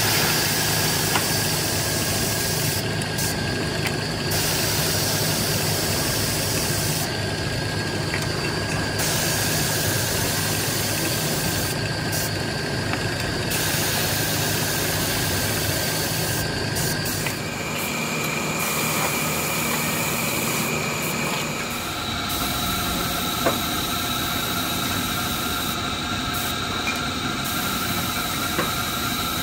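Steady mechanical drone with an airy hiss, from paint spraying with a compressed-air spray gun onto steel oil filter canisters while a motor runs. The character of the drone changes abruptly twice in the second half.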